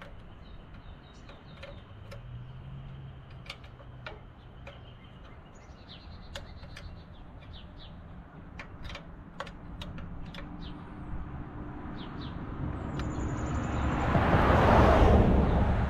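Small scattered clicks from hands and a tool working the ignition wiring of a tractor engine, with birds chirping now and then. Near the end a vehicle passes on the road, a rush of noise that rises, peaks and fades and is the loudest sound.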